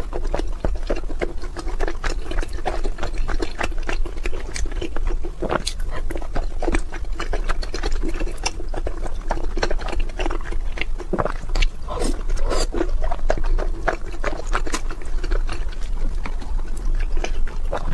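Close-up wet chewing and lip smacking of soft, syrup-soaked food: a dense, unbroken run of small sticky clicks and squelches.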